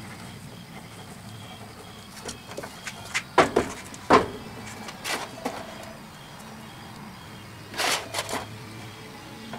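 A wooden box knocking and clattering as it is lifted and set down, then a short rustling scrape of foundry sand being scooped, over a steady low hum.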